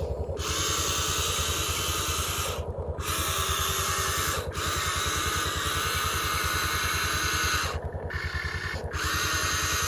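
Remote-control excavator's small electric motors and plastic gearboxes whirring as it drives and digs, the whir cutting out briefly a few times as the controls are let go.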